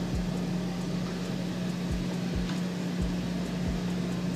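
iRobot Braava jet mopping robot starting its run, driving off its charging dock with a steady motor hum and a few soft low thumps at uneven intervals.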